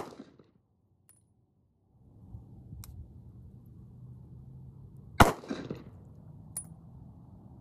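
A Sig Sauer P938 Legion 9mm pistol fires a single shot about five seconds in, with a short echo. The tail of a previous shot fades at the start, and a few faint metallic ticks fall in between.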